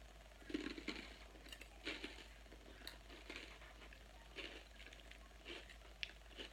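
Close-up chewing of a crunchy salad: short, irregular crunches, about one a second, over a faint steady hum.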